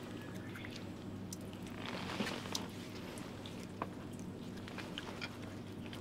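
Water trickling from a bamboo spout onto hands held beneath it and dripping onto a stone trough, with scattered drips and small splashes. It swells into a brief louder splash about two seconds in.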